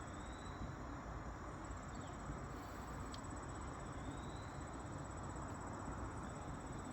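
Quiet outdoor ambience: a steady high-pitched insect trill over a low hiss, with two faint short chirps and a single click about three seconds in.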